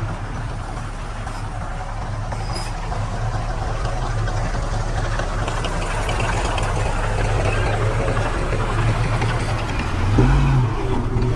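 Heavy diesel engine of earthmoving equipment running steadily, its low hum slowly growing louder. About ten seconds in it briefly gets louder, with a low tone that bends up and back down.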